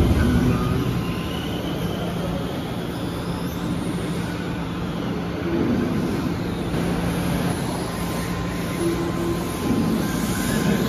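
Radio-controlled cars racing around an indoor dirt track: a steady rush of motor and tyre noise with a few faint rising motor whines, over a constant low hum. A short low thump at the very start.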